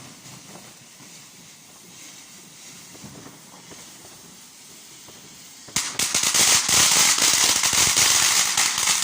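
A ground firework going off: after a faint steady background, it suddenly erupts about two-thirds of the way in into a loud, dense run of rapid crackling bangs that keeps going.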